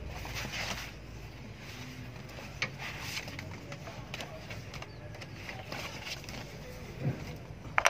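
Nissan Navara's 2.5-litre diesel engine running with a steady low hum, with a few sharp clicks and taps from hands working in the engine bay.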